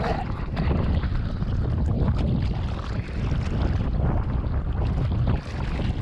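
Strong wind rumbling on an action camera's microphone at the water's surface, with sea water sloshing and splashing close by around a foil board in choppy water.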